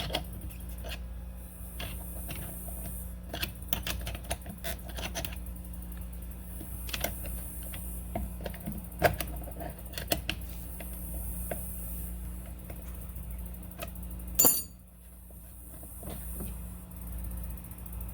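Irregular small clicks, taps and rattles of hand tools and small parts being handled during work on a motorcycle fuel line quick-disconnect fitting, with one sharper knock about three-quarters of the way through, over a steady low hum.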